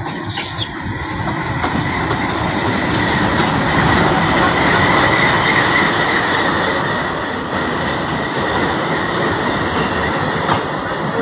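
Indian Railways diesel-hauled passenger train running past close by along a platform: a loud, steady rumble and rattle of wheels and coaches, with a thin high squeal from the wheels running through it.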